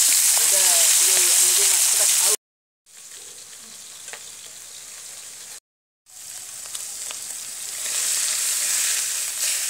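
Pieces of fish frying in hot oil in a wok: a steady sizzle with light crackling. It cuts out completely twice for about half a second, and is quieter in the middle stretch.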